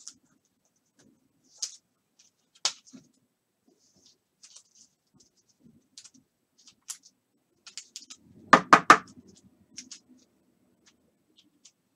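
Light clicks, taps and scrapes of objects being handled on a desk. A sharp knock comes about two and a half seconds in, and three loud knocks follow in quick succession near the nine-second mark.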